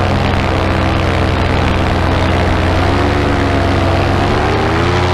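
Paramotor engine and propeller running steadily in flight, loud and close, its pitch dipping slightly and rising again about four seconds in.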